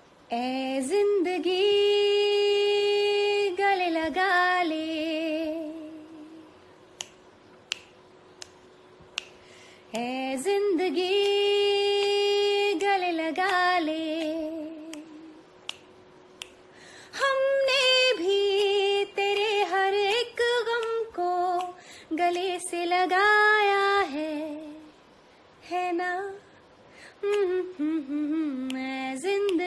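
A woman singing unaccompanied, holding long notes that end in a wavering vibrato, in three phrases with pauses between them. A few faint clicks fall in the first pause.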